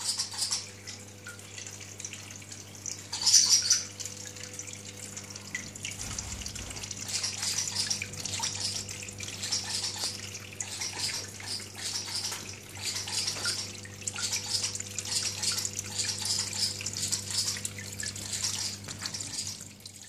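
Water trickling and splashing down a small built-in terrarium waterfall, with a steady low hum underneath. It is briefly louder about three seconds in.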